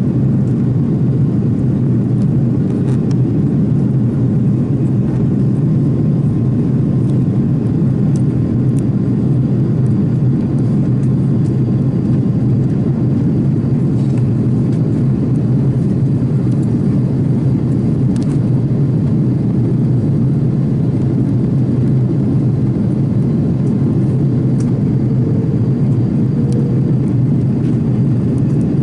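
Steady low cabin noise inside an Airbus A330 airliner on its descent: the even rumble of the engines and airflow, with a faint steady whine.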